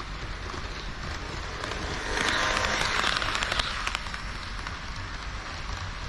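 HO scale model train of KiHa 40 and KiHa 58 diesel railcars running on the layout's track, a steady rattle of wheels on rail with clicks at the joints. It swells louder for about two seconds near the middle.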